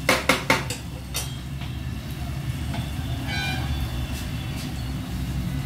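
A steel spatula clinks against a stainless steel pan a few times in quick succession right at the start. After that comes a steady low hum with a faint sizzle from the frying onions, tomatoes and green chillies.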